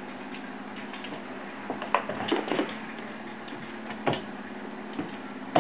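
A cat jumping at a feather toy: a cluster of light thumps and scuffles as it lands, about two seconds in, then single knocks a couple of times later. A steady low hum runs underneath.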